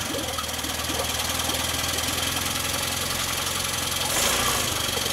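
Yamaha F15 four-stroke outboard engine catching on its electric starter and running at a steady idle. Its valve clearances have just been reset after the first cylinder's valves were found too tight, and it idles evenly with no valve tapping.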